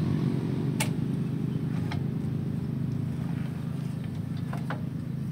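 Yamaha L2 Super's small two-stroke single-cylinder engine idling steadily, with a few light clicks.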